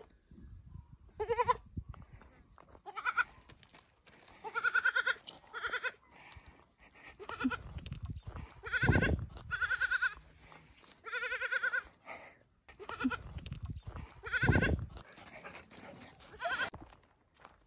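Young goat kid bleating over and over, about a dozen short wavering calls a second or two apart.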